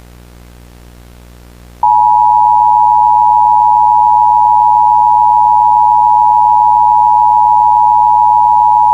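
Emergency Alert System attention signal: a loud, steady two-tone alert (853 and 960 Hz) that comes in about two seconds in and holds without a break. Before it there is only a faint low hum.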